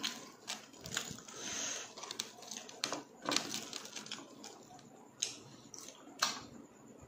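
Irregular sharp crackles and clicks from crispy deep-fried pork intestine (chicharon bulaklak), as the crunchy pieces are handled, dipped and chewed.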